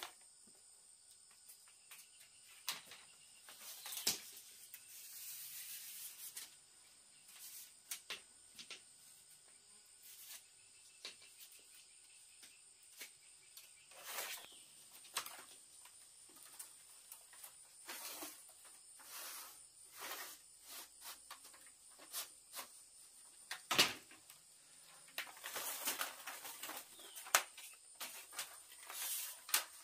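Irregular light knocks, clicks and rustling, a sharper knock a little before the end, over a steady high-pitched insect drone.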